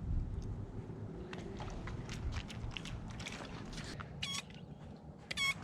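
Rustling, rumbling noise with scattered clicks, then two short, high squeaks near the end.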